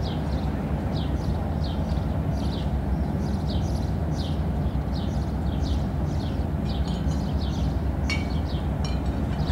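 Small birds chirping in short, high, falling chirps, about two a second, over a steady low mechanical rumble. About eight seconds in there is a sharp click, then a brief rapid ticking.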